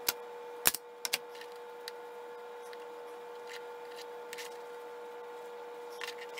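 Several sharp clicks and taps from hands and tools working a hide on a taxidermy form, loudest in the first second and a half with fainter ticks later, over a steady electrical hum.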